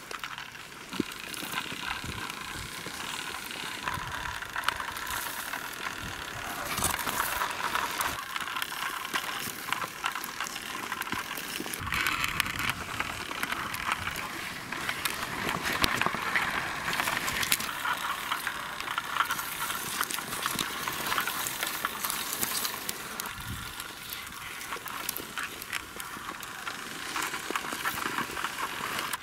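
Small diecast model SUV pushed by hand over sandy dirt, its wheels crunching and crackling on the grit with a steady stream of small clicks and scrapes.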